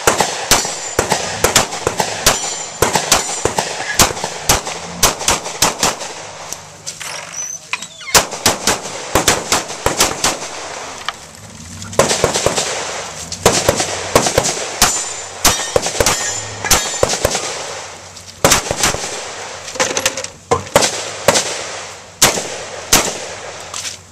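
Semi-automatic pistol fired rapidly at close range, in several quick strings of shots broken by short pauses of about a second.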